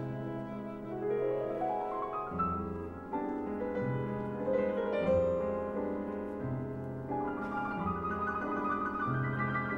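Two pianos with orchestra playing classical music: a quick rising piano run about a second in, then chords over held low notes.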